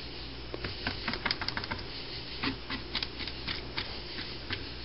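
Paint brush patting resin into fiberglass cloth inside a resin-stiffened card-stock helmet shell: quick irregular taps and clicks, several a second, over a low steady hum.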